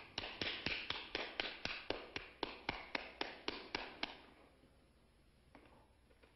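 One person clapping slowly and evenly, about four claps a second, echoing in an empty theatre; the claps stop about four seconds in, leaving a few faint scattered clicks.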